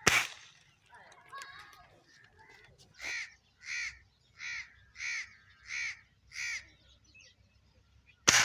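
A crow cawing six times in an even series, a little under two calls a second. A sharp, loud bang comes right at the start and another near the end.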